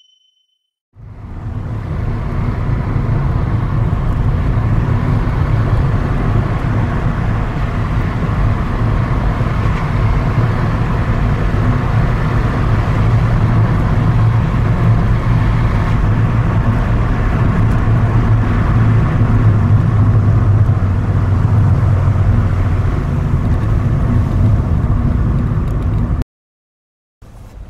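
A car driving at steady speed: a continuous low engine hum with road and tyre noise. It cuts off suddenly near the end.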